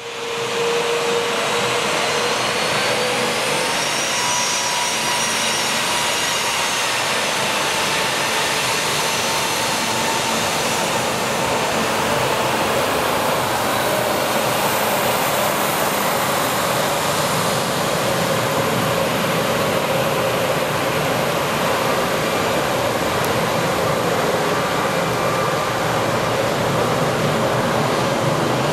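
Embraer 195's GE CF34-10E turbofan engines running at taxi thrust: a steady jet rush with a faint whine.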